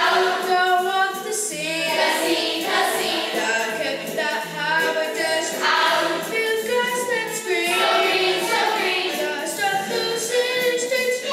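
A young stage cast singing a show tune together in chorus, with instrumental accompaniment underneath.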